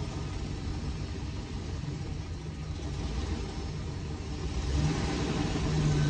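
2005 GMC Savana 3500 box truck's engine running as the truck rolls slowly forward, a steady low rumble that gets louder about five seconds in.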